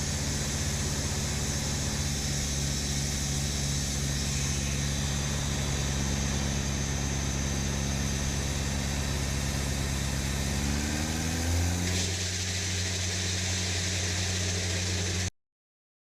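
Bandsaw mill's engine running steadily at idle; about eleven seconds in its pitch rises briefly to a higher, steady speed. The sound cuts off suddenly near the end.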